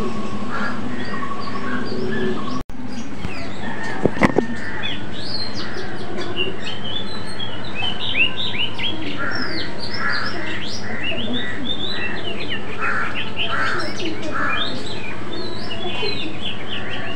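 Songbirds chirping and singing in a busy chorus of short, quick notes. There is a brief dropout about two and a half seconds in and a few sharp clicks about four seconds in.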